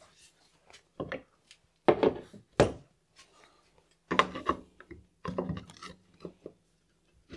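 Handling noise at the saw: wooden pieces and tools being set down, picked up and slid, heard as a string of separate knocks, clacks and rubs. The loudest come about two and four seconds in.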